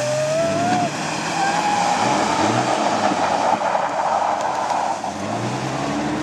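Jeep Grand Cherokee engine revving up and down in repeated surges, about once a second, as its wheels spin through slushy snow and mud. A steady hiss of tyres and thrown slush runs under the engine.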